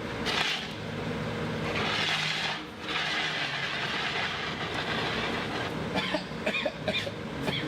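A backup fire extinguisher sprayed in two hissing bursts, a short one about half a second in and a longer one around two seconds, used to put out burning paper after the first extinguisher came up empty. A steady low hum runs underneath, and a few sharp clicks come near the end.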